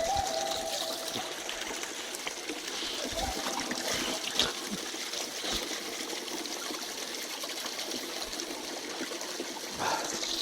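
Running water trickling and splashing steadily, the sound of a mountain stream or small waterfall.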